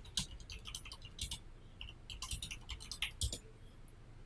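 Typing on a computer keyboard: a quick, irregular run of keystrokes that stops about three seconds in.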